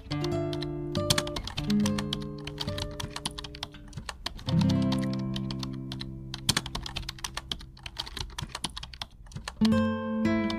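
Computer keyboard typing sound effect: rapid, irregular key clicks laid over background music of sustained chords that change every few seconds.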